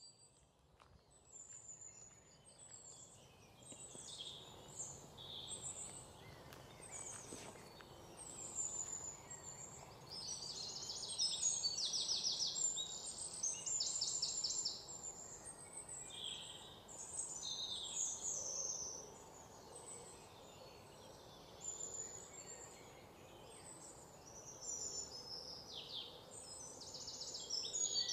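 Several birds calling in scrub and trees: short high chirps and fast rattling trills, repeated throughout, over a faint steady outdoor background hiss. The sound fades in over the first couple of seconds.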